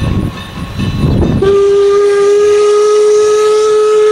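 Steam locomotive whistle blowing one long, steady blast, starting about a second and a half in after a low rumbling noise.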